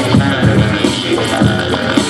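Loud backing music for a yo-yo freestyle routine, with a heavy bass line and a steady beat about every half second.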